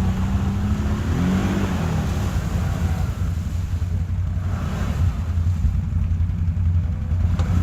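ATV engine running steadily under way, its low engine note briefly rising about a second in.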